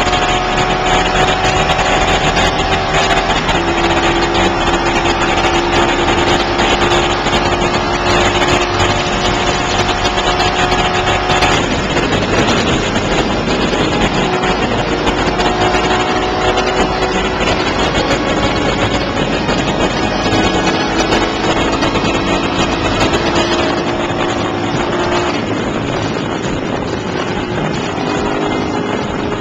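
Ducati 916 (955) L-twin engine running steadily at high revs at motorway speed, its note holding with small shifts in pitch under heavy wind rush on the microphone. Around the middle the engine note is briefly lost in the wind noise before coming back.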